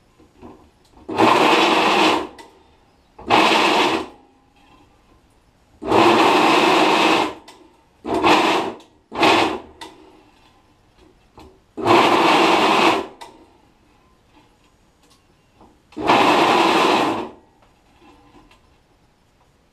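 Drill press bit cutting into the holes of an aluminium plate, cleaning them up one after another: seven short bursts of cutting noise, each a second or so long, with quieter gaps between as the plate is moved to the next hole.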